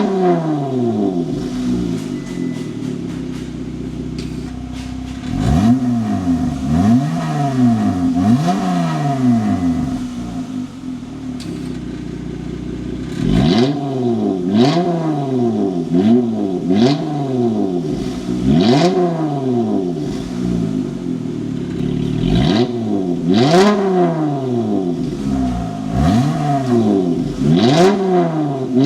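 Dodge Charger SXT's 3.6-litre V6 through a dual 2.75-inch stainless steel cat-back exhaust, revved in quick blips from idle, each one rising and falling in pitch. The blips come in two runs, with the engine idling steadily for a few seconds before each.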